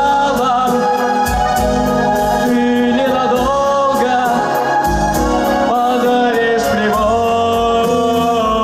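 A man singing a song about the sea into a microphone over instrumental accompaniment.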